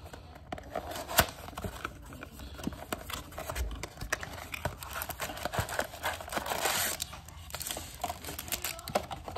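A cardboard trading-card blaster box being opened by hand: flaps pulled open and card packs slid out, with small taps, scrapes and paper crinkles. A sharp click comes about a second in, and a longer tearing rustle around seven seconds in.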